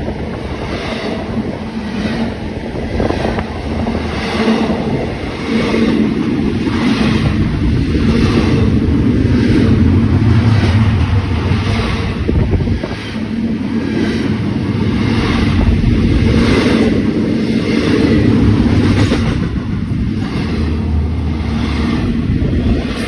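A train passing close by: a steady heavy rumble with a regular clatter, about one to two beats a second.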